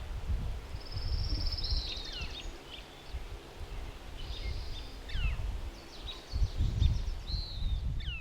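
Wild birds calling and singing outdoors: repeated short falling chirps and a brief buzzy trill about a second in. Underneath is a low rumbling noise that comes in gusts and is loudest near the end.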